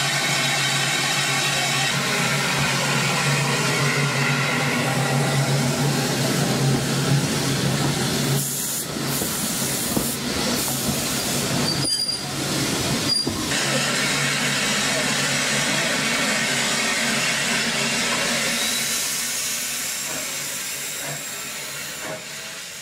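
Standing SE&CR steam locomotives 263 and 592 with steam hissing steadily, under voices of people on the platform. The sound breaks off briefly a few times and fades near the end.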